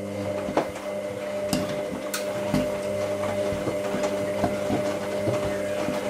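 Hoover AC158 Classica 1000 washing machine running: a steady hum with irregular knocks and clicks on top, growing slightly louder.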